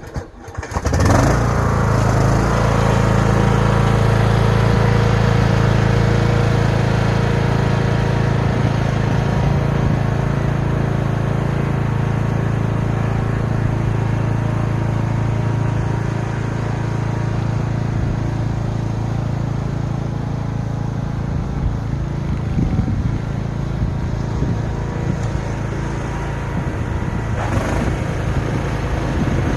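Cub Cadet XT1 lawn tractor engine running steadily under load, driving its three-stage snowblower attachment through snow; the sound comes in abruptly about a second in.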